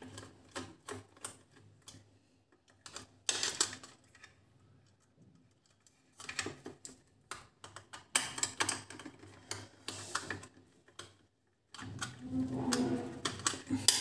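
Irregular clicks and taps of a small screwdriver working the terminal screws of a plastic two-way light switch as wires are fastened in, coming in clusters with short pauses, and the plastic switch plate knocking as it is handled near the end.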